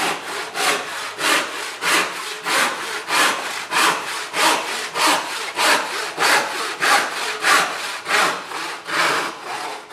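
Wooden-handled Western handsaw crosscutting a board to a scribe line, in a steady rhythm of rasping strokes, about three a second.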